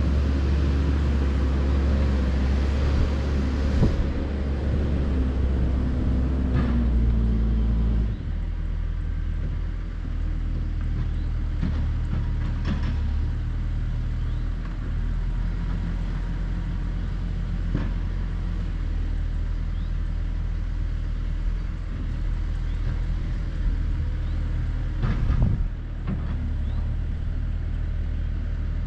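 JCB backhoe's diesel engine running under load, revving higher for the first eight seconds or so and then dropping to a lower, steadier drone. A few short knocks sound over it, the loudest near the end.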